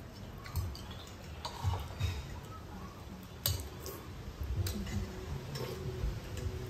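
Metal spoons clicking and scraping against ceramic soup bowls during eating, in scattered sharp ticks about a second apart, with soft low bumps between them.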